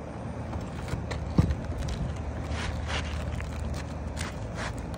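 Asphalt shingle being slid and worked into place on a roof: short scrapes and rustles of shingle against shingle and hands on the gritty surface, with one dull thump about a second and a half in, over a steady low rumble.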